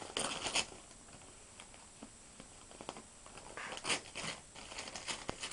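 A cat tearing and crinkling newspaper with its mouth: paper rustling and ripping in two main bursts, one just after the start and one about four seconds in, with smaller crackles between.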